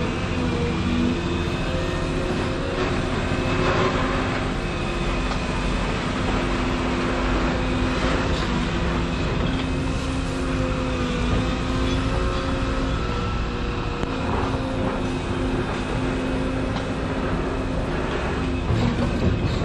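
Volvo EC235EL excavator running steadily at work: the diesel engine and hydraulic pump hum with a whine that shifts slightly in pitch as the hydraulics are worked, and a few faint knocks.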